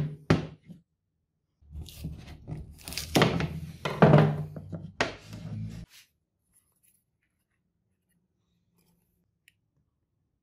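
A wooden handle blank handled on a glass work plate. Two sharp knocks at the start, then about four seconds of knocking and rubbing that stops a little past the middle.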